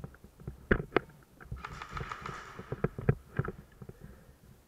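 Irregular knocks and thumps of an airsoft player on the move, from footsteps and gear bumping, with a brief hissing rush about two seconds in.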